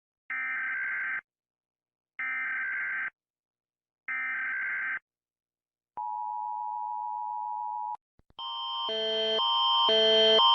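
Emergency Alert System tones: three short buzzing data bursts of the header, each about a second long with a second's gap, then about two seconds of a steady two-tone attention signal. From about eight seconds in, a louder rhythmic sequence of alternating tones starts and swells.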